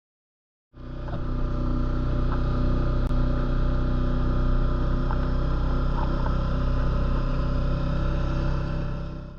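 Engine running at a steady speed, fading in about a second in and fading out near the end.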